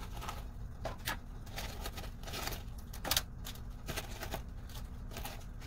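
Scattered light clicks and taps of a metal fork against a disposable aluminium foil pan and paper towel as fried chicken tenders are lifted and set down, irregularly spaced.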